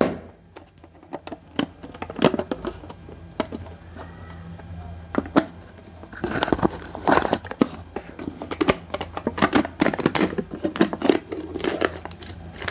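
Foil inner seal on the mouth of a plastic supplement tub being picked at, peeled and torn off: crinkling and tearing in quick irregular bursts, busiest in the second half.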